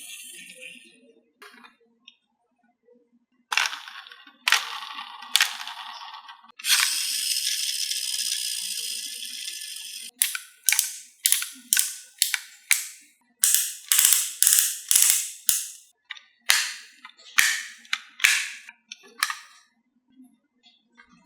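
Marbles running down a wooden HABA marble track: a few single knocks, a steady rolling sound from about 7 to 10 seconds in, then a rapid run of sharp clacks, two or three a second, that thins out near the end.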